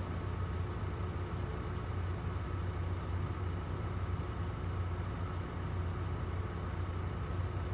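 Sumitomo hydraulic excavator's diesel engine running steadily with a low, even hum while the machine digs and swings overburden.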